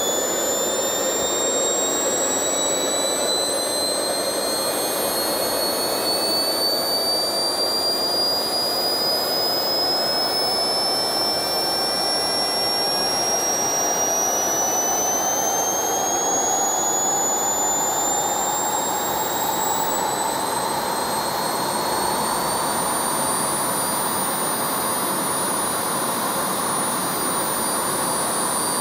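Small see-through turbojet engine running: a steady rush of air with a high turbine whine that rises slowly and evenly in pitch throughout.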